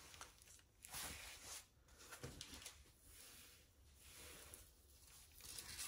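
Near silence: quiet room tone with a few faint, soft rustles.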